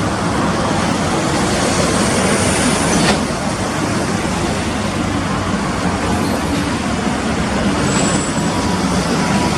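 Road traffic noise: the steady rumble of passing motor vehicles, with a faint high squeal about two seconds in.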